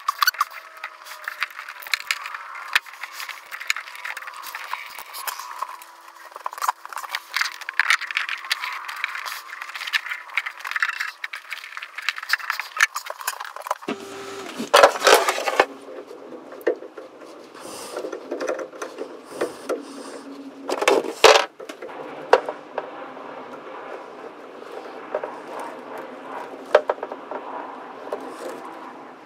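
Clicks, scrapes and rattles of hands working plastic hose and metal fittings on a saltwater-intake through-hull valve, with a few louder scraping clusters past the middle.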